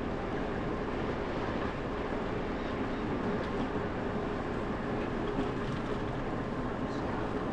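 Steady rumble of a bicycle rolling along a concrete path, mixed with wind noise.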